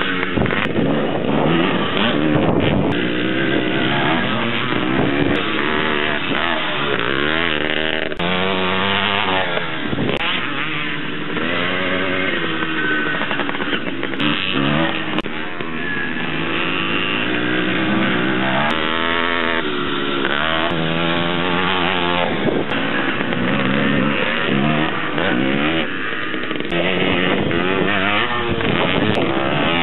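Air-cooled vintage motocross motorcycles racing past on a dirt track, their engines revving up and down through the gears as they pass, with more bikes running in the distance.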